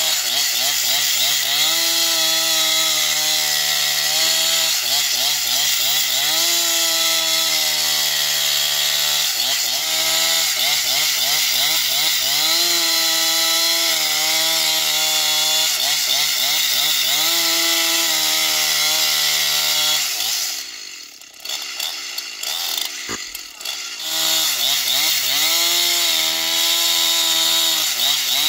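Husqvarna two-stroke chainsaw running at full throttle while ripping lengthwise along a large log. The engine pitch sags and recovers again and again as the chain loads up in the wood. About two-thirds of the way through, the saw drops away and runs quieter for about four seconds, then comes back up to speed.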